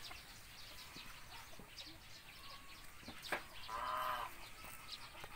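A chicken gives one short, drawn-out cluck about four seconds in, over faint chirping of small birds. A single sharp click comes just before the cluck.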